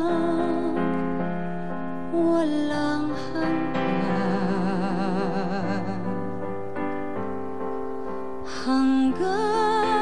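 A female vocalist singing a ballad live into a microphone, holding long notes with wide vibrato, over piano accompaniment.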